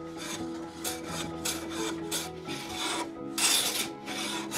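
Metal bench plane being pushed in quick repeated strokes along the edge of a board, about two a second, each pass shaving wood with a swish. The longest and loudest stroke comes a little past three seconds in.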